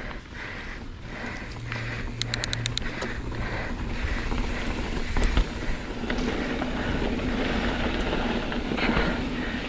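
Mountain bike riding down a rocky trail: a steady rumble of tyres on rock and dirt, with knocks and rattles from the bike and a brief run of fast ticking about two seconds in.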